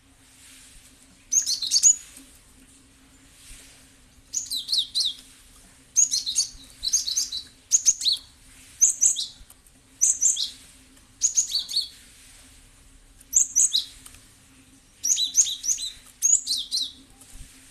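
Cinereous tit (gelatik batu) singing: about ten short, loud bursts of rapid high chirping notes with brief pauses between them, over a faint steady low hum.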